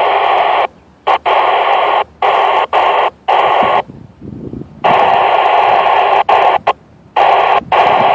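Mobile VHF FM transceiver's speaker hissing with static in repeated bursts that cut in and out abruptly, as the squelch opens and closes on a weak, fading signal.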